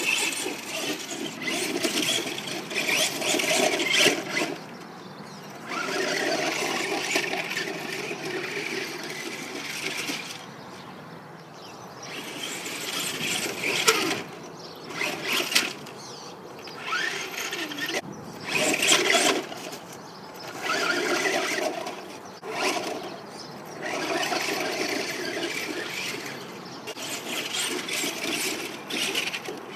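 Helion Invictus radio-controlled truck's electric motor and gears whining in repeated bursts of a second or two as it is driven over bumpy snow, with short pauses between throttle bursts and the pitch rising now and then as it speeds up.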